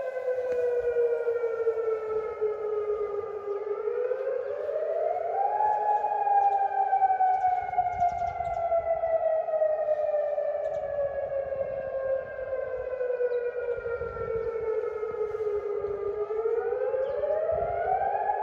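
Civil defence siren wailing: its pitch climbs over about two seconds, then sinks slowly for about ten seconds, and starts climbing again near the end. It is sounded to signal a curfew.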